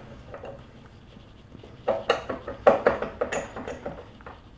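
Lambretta gearbox endplate being worked by hand over its studs onto the engine casing: after a quiet start, a run of light metal clinks and knocks about two seconds in, a few of them ringing briefly.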